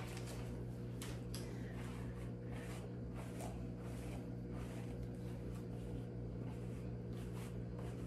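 Faint, repeated swishing strokes of a Wet Brush detangling hairbrush pulled through damp hair, over a steady low hum.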